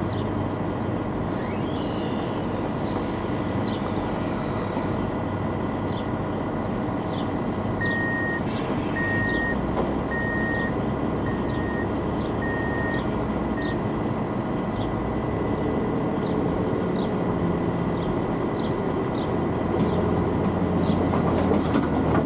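Large Hyundai diesel forklift running, its backup alarm beeping six times around the middle; the engine gets louder near the end as the forklift drives up close.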